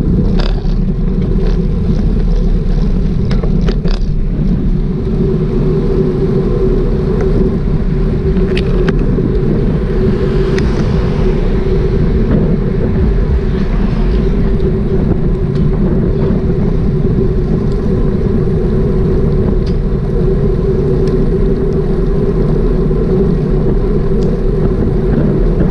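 Motorcycle cruising at low, steady speed: an even engine drone mixed with wind rushing over the camera microphone, with no gear changes or revs.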